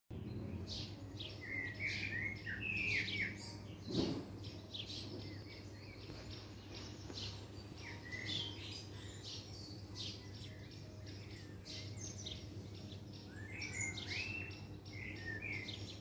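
Small garden birds chirping and singing: a steady stream of short high chirps, with warbling song phrases near the start and again near the end, over a low steady hum. A single sharp knock about four seconds in.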